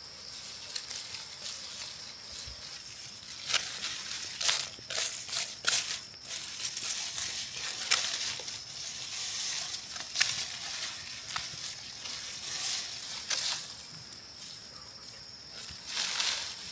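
Dry straw and vegetation crunching and rustling in irregular bursts, over a steady high insect drone.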